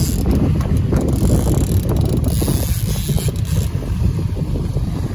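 Wind buffeting the microphone: a loud, uneven low rumble, with a hiss on top that drops away about three and a half seconds in.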